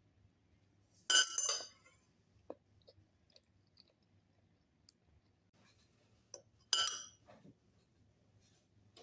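Two ringing clinks of tableware, like a spoon knocking a porcelain bowl or glass, about five and a half seconds apart, with faint small clicks between.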